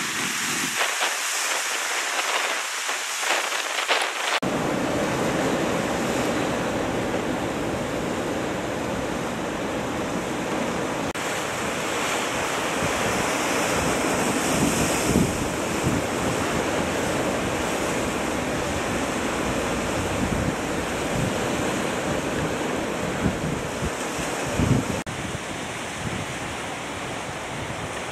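Sea surf washing steadily against a rocky shore, with wind buffeting the microphone.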